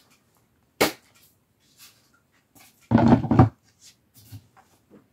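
Knocks and clatter of a flat-pack shelf's metal poles and wood-grain board being handled: a sharp click about a second in, then a louder cluster of knocks at about three seconds.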